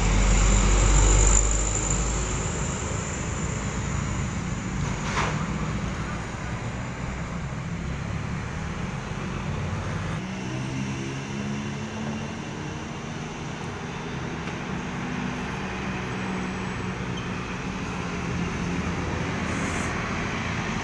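Roadside traffic: a light diesel dump truck passes close, loudest in the first second or so, followed by a steady wash of passing motorcycles and cars. From about halfway through, another vehicle's engine drone builds as a truck comes nearer.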